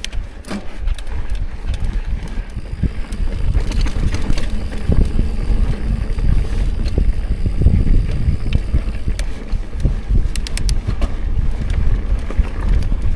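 Mountain bike rolling over a rocky trail: tyres crunching on rock and gravel, with sharp clicks and rattles from the bike and a low wind rumble on the camera microphone that grows louder a few seconds in.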